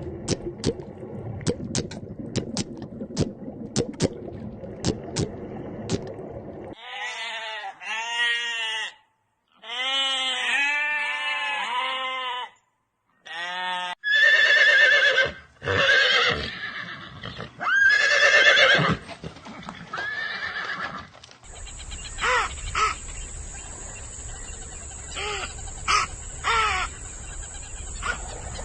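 A horse whinnying and neighing in a string of short, shaky-pitched calls, cut together from separate clips. It opens with a run of sharp clicks and ends over a steady high hiss.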